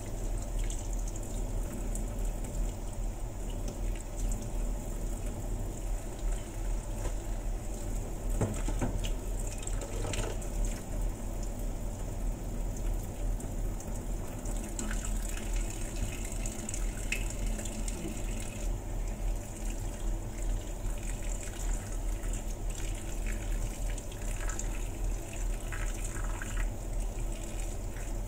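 Kitchen tap running steadily into a stainless-steel sink and a pot of water, as gloved hands rinse pieces of boiled shark fin under the stream.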